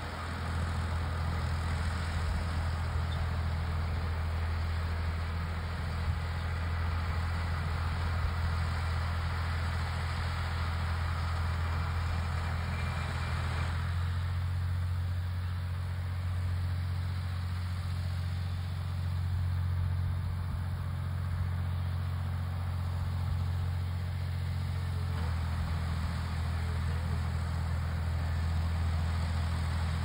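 Ford tractor's engine running steadily as it pulls a John Deere 410 round baler through the hay: a low, even drone. The higher part of the noise drops away about halfway through.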